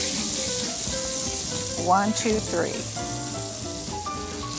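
Lemon juice sizzling and bubbling in a hot frying pan of chicken drippings, stirred with a silicone spatula as the pan is deglazed. A brief voice sound rises and falls about two seconds in.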